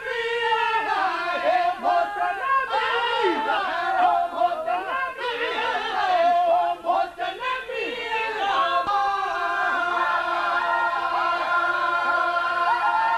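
A group of men singing and chanting together in many overlapping voices, without instruments. From about eight seconds in, long held notes come in under the voices.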